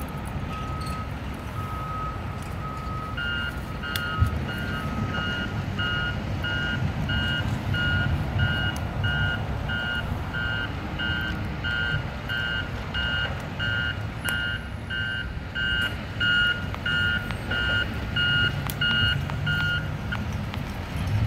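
Construction-vehicle reversing alarms beeping. A lower beeper sounds about once a second and stops about six seconds in. A second, higher beeper starts about three seconds in, beeps a little faster, and stops shortly before the end. Low heavy-engine rumble runs underneath.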